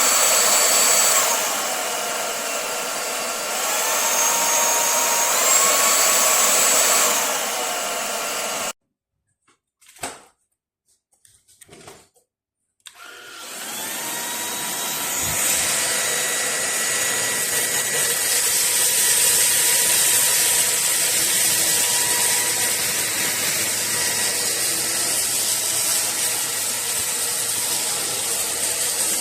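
Lubluelu 25000Pa cordless stick vacuum running, its motor pitch and level stepping up and down between settings a few times. About nine seconds in it switches off abruptly, leaving a few small clicks. Some four seconds later it starts again, spins up over a couple of seconds and runs steadily with a whine.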